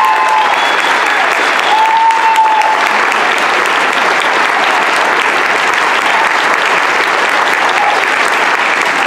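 Audience applauding steadily at the end of a choir performance, with a short held call from the crowd about two seconds in.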